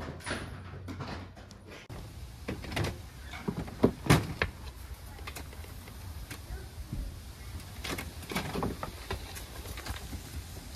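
A door and running footsteps: a scattering of knocks and thumps, the loudest about four seconds in, over a steady low rumble.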